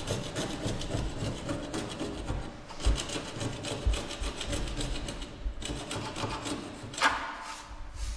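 Hand scraping and rubbing old paint, rust and dirt off a car's steel body panel in rapid, uneven back-and-forth strokes, uncovering a stamped number.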